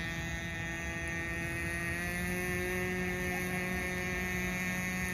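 Nitro RC boat's small glow-fuel two-stroke engine running at speed, a steady high-pitched engine whine that rises a little in pitch about two seconds in.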